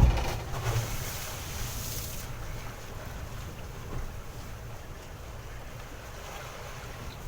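Wind buffeting the microphone on a small boat at sea, with a loud gust right at the start and a rushing hiss over the first two seconds. After that it settles into a steady low rumble with the wash of water.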